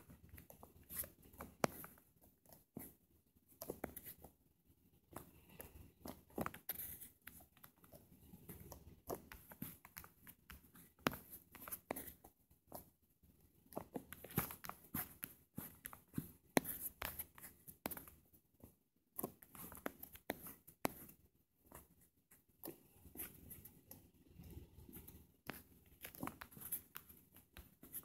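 Faint, irregular taps and rubs of a fingertip or stylus on a phone touchscreen while drawing, with small handling clicks from the phone.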